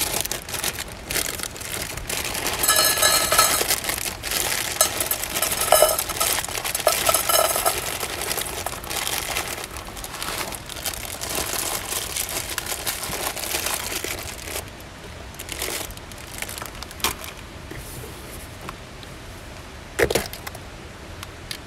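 A plastic bag crinkling as dry dog food pours and rattles into a stainless steel dog bowl, thickest in the first several seconds, then thinning to scattered rustles. Near the end comes one sharp click from the lid of a plastic tub.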